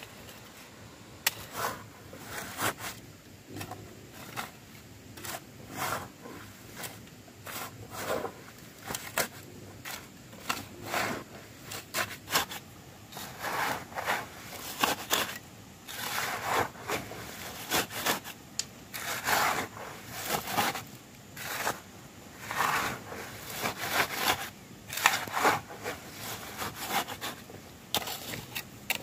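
Repeated scraping strokes of a hand tool working wood, about one or two strokes a second.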